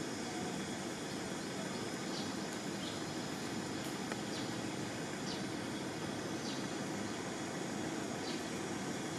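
Steady outdoor background noise, a continuous even hiss, with faint short high chirps about once every second or so.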